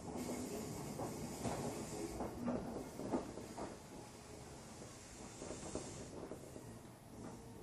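Inside an Odakyu 8000 series commuter car, low hiss with scattered irregular knocks and clicks and brief low hums; no traction-motor whine is heard.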